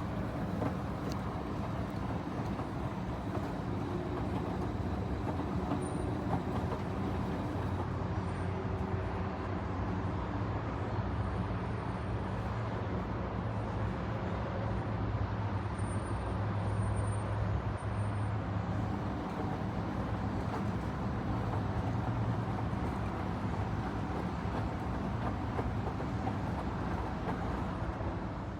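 Panasonic XQG32-A312D 3.2 kg compact drum washing machine running: a steady, even motor hum.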